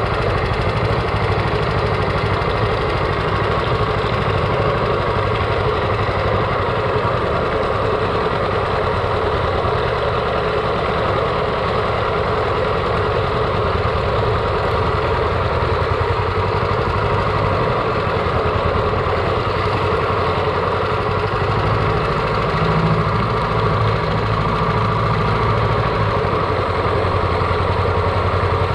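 Predator 420cc 13 hp single-cylinder four-stroke engine of a longtail mud motor, running steadily at an even speed.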